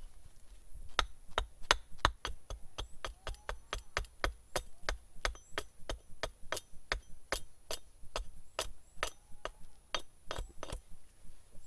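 Hatchet striking a hazel stick held upright on a wooden chopping block: a steady run of short, sharp knocks, about three a second, as the wood is shaped for a bow drill set.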